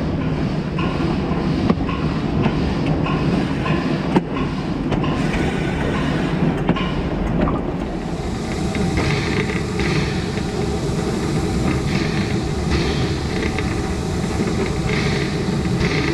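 Puffing Billy narrow-gauge steam locomotive running along the line, its wheels clicking over the rail joints in a steady rhythm over a continuous rumble. About halfway through the sound changes to a rushing noise with rhythmic bursts of hiss, roughly one a second.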